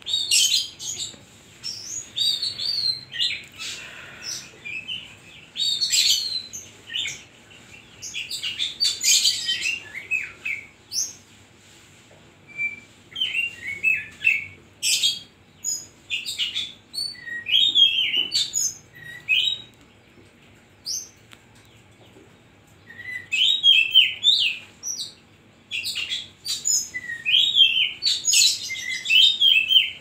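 Caged Oriental magpie-robin (kacer) singing in full, loud voice: rapid runs of sharp chirps and whistled notes in bursts, with brief pauses between phrases.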